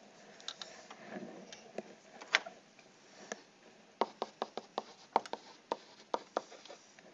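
Light plastic clicks and taps of a stylus on a pen tablet as numbers are handwritten in digital ink. A few scattered clicks come first, then a quicker run of about three taps a second near the middle, while the digits are written.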